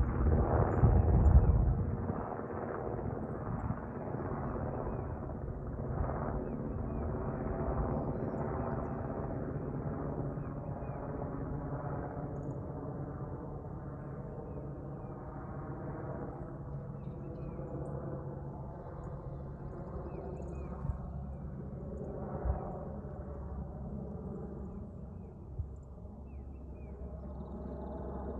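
Sikorsky UH-60L Black Hawk helicopter flying away overhead: a steady rotor and turbine hum of several tones that slowly fades as it climbs away. A heavier low rumble fills the first two seconds.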